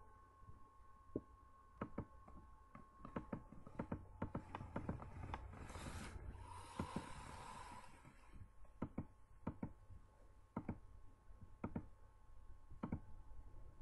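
Computer mouse clicking in short, sharp, irregular clicks, over a faint steady electrical whine and low hum. A soft rustling hiss runs for about two seconds near the middle.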